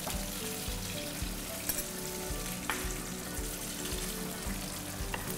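Oil sizzling steadily in a frying pan, under soft background music with a slow beat. There are two light clicks of a metal spoon against a bowl while salt is stirred into a parsley-tahini salad.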